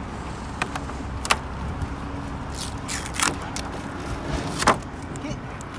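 Steady low hum of a car engine idling, with about five sharp clicks and knocks spread through it, the strongest a little before the end.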